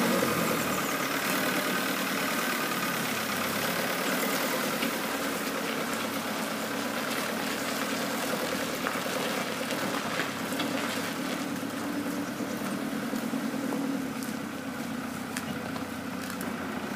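Vintage tractor engine running steadily as the tractor pulls a trailer loaded with logs past and away, getting a little fainter near the end.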